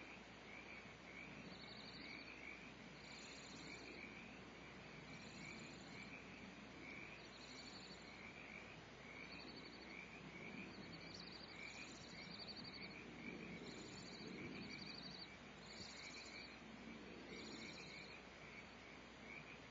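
Faint animal chorus: a buzzy pulsed trill repeats every one to two seconds over steady high-pitched chirping.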